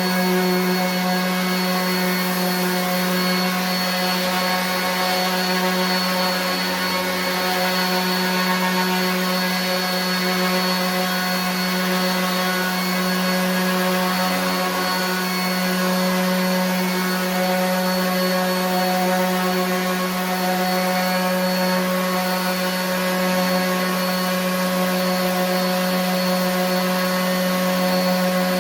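RIDGID 18-volt 5-inch cordless random orbit sander running steadily, sanding wood, with a constant motor hum under the rasp of the sanding pad.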